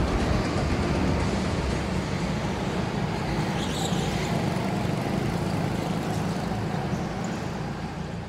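Go-kart engines running together, a steady mechanical din that fades out near the end.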